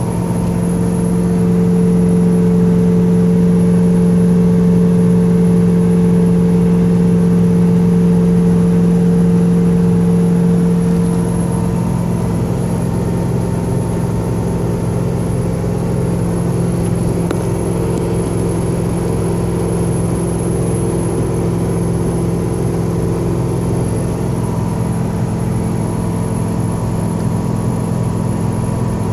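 A fan whirring with a steady, humming tone over the running noise of a vehicle on the road. The hum is strongest for the first ten seconds or so, then drops back and shifts slightly in pitch.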